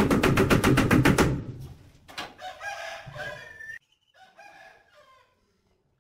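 Rubber mallet tapping a ceramic wall tile into its adhesive bed in fast, even taps, stopping about a second in. A rooster then crows once, with a shorter call just after.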